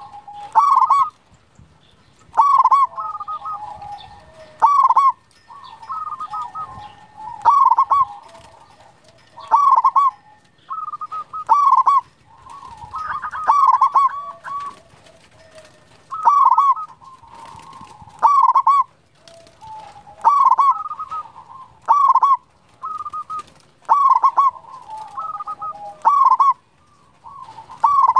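Local zebra dove (perkutut) singing without pause: a loud cooing phrase repeats about every two seconds, with softer cooing notes in between.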